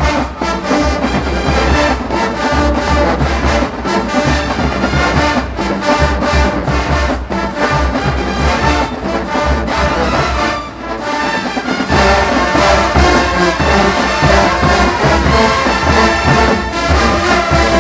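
Marching band playing a brass-heavy tune over a steady bass drum beat. About 12 seconds in it comes back in fuller and louder after a short dip.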